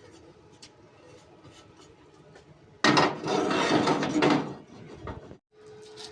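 Kitchen utensils clattering against dishes and a wooden surface while food is handled. A louder, noisy stretch starts abruptly about three seconds in and lasts about a second and a half.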